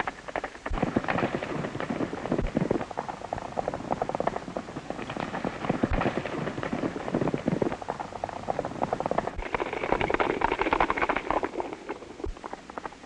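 Hoofbeats of horses at full gallop: a dense, rapid clatter of hooves on dry ground.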